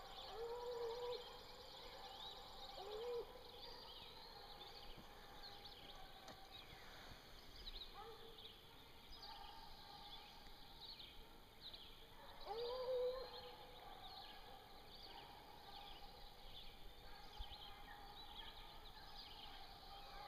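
Distant English hounds baying on a bear track: a few drawn-out bawls about a second in, near three seconds, and again around twelve to thirteen seconds. Small birds chirp throughout.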